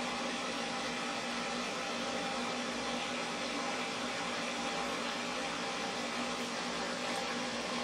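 Pet grooming stand dryer blowing a steady rush of air, with a constant low motor hum underneath.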